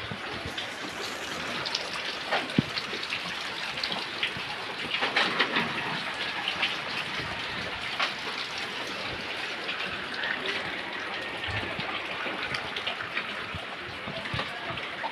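Steady rain falling, with many small scattered drips and taps.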